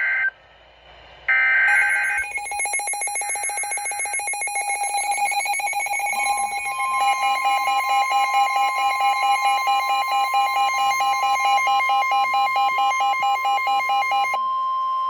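Emergency Alert System tornado-warning tones. Two short bursts of warbling digital header data come a second apart near the start. Then a rapidly pulsing alert tone plays, joined about six seconds in by a steady higher tone, and all of it cuts off abruptly near the end.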